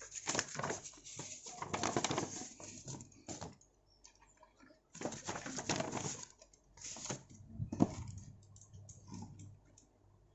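Packaging rustling and crinkling in several irregular bursts as an item is handled and unwrapped, with short quiet gaps between.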